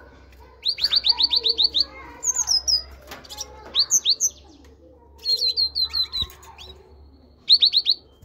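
Great tit singing: quick series of sharp, high, downward-sweeping notes in five separate bursts. The longest burst is about nine notes in just over a second near the start, and a short final burst of four notes comes near the end.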